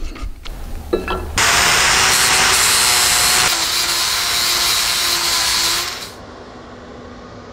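Cordless angle grinder with an abrasive disc grinding down a steel weld bead. After a few clicks it runs loud and steady for about four and a half seconds, then cuts off.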